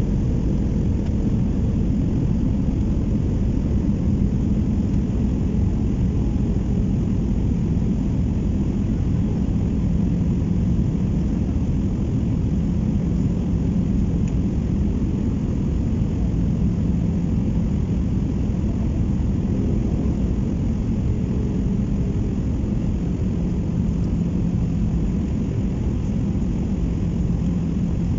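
Airbus A319 passenger cabin in flight: a steady low rumble of jet engines and airflow, with a faint hum that varies little in level.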